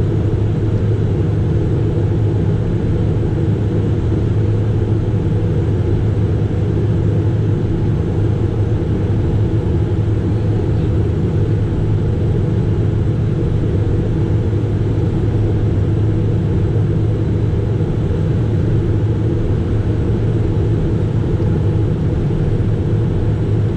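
Steady cockpit noise of a Cessna Citation Mustang light jet in flight: the low drone of its twin Pratt & Whitney Canada PW615F turbofans mixed with airflow, unchanging throughout.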